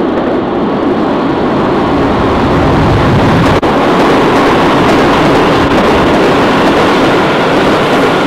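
U-Bahn subway train passing close by in the tunnel: a loud, steady rumble and rush of wheels on rails. It builds as the train approaches and then stays loud while the cars run past.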